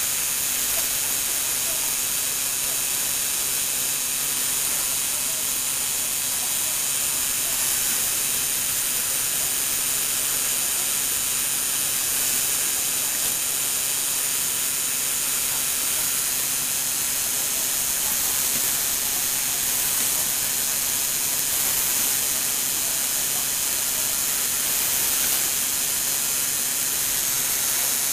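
Lego Technic motor driving a plastic gear train of 12- and 36-tooth gears, giving a steady whirring hiss with a faint low hum underneath.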